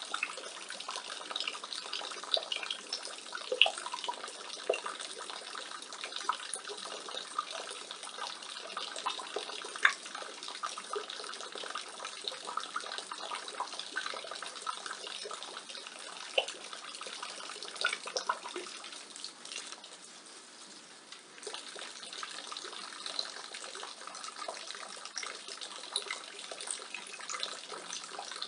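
Rainwater falling from a roof gutter and splashing steadily, with many sharp individual splats on top of the running spatter. The flow eases briefly about two-thirds of the way through, then picks up again.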